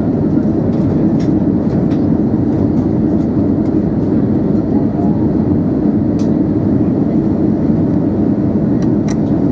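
Steady cabin noise of an Airbus A320-214 on approach, heard from a window seat over the wing: its CFM56 turbofan engines running and air rushing past the fuselage as a constant low rumble, with a few faint ticks.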